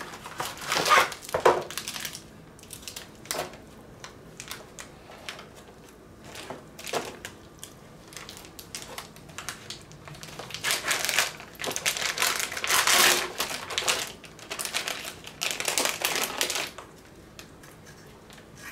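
Plastic bacon packaging crinkling as it is opened and the strips are pulled out, in rough irregular bursts that are densest over the second half.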